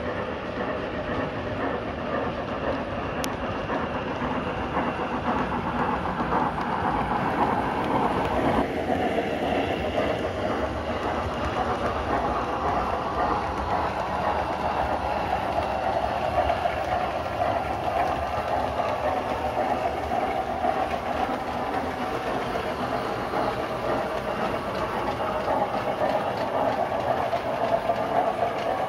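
7mm-scale model trains running on the layout's track: a steady running noise of wheels on rail and model motors, with the sound changing about a third of the way through.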